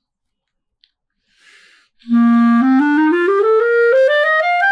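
About two seconds in, a clarinet plays a held low note, then climbs a stepwise rising scale over nearly two octaves. The clarinet has just been adjusted by a repair technician and its pads seal well.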